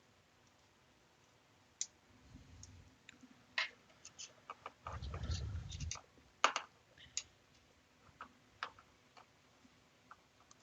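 Parts and tools being handled during hands-on assembly: scattered small clicks and light knocks, with a dull rumble of about a second near the middle.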